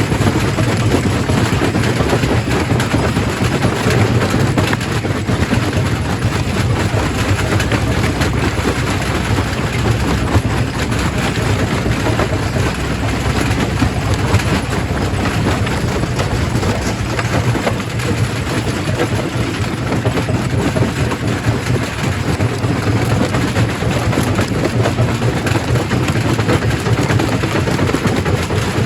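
Primary rock crusher at work, stone being crushed: a steady low machine drone under continuous dense rattling and clattering of rock.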